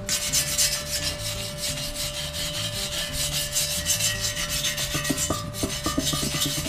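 Hand wire brush scrubbed rapidly back and forth over fresh welds on a steel axle casing, a scratchy rasping, with a brief pause about five seconds in. It is the clean-up of the weld bead after welding.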